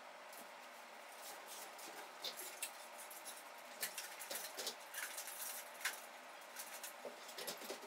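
Faint, irregular rustling, scraping and small clicks as hands handle and fasten parts of a hanging sculpture, busier from about two seconds in.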